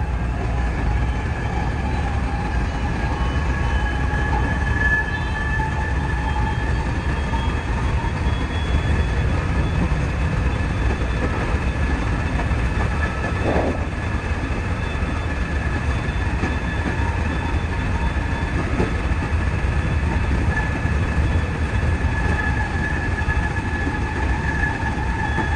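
JR West 207 series electric commuter train running at speed, heard from the driver's cab: a steady rumble of wheels on rail with a thin, steady high whine over it.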